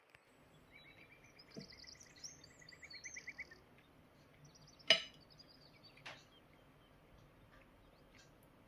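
A metal fork clinks once, sharply, against a textured glass plate about five seconds in, with a softer tap a second later, as it lifts a piece of crisp baked cheese crust. Before that, a faint rapid trill of chirps, like a small bird singing, is heard in the background.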